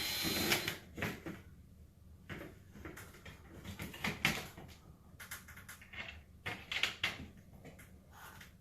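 Irregular knocks, clicks and scrapes of a metal AC register grille being handled and fitted onto a ceiling register box, with a louder noisy scrape right at the start.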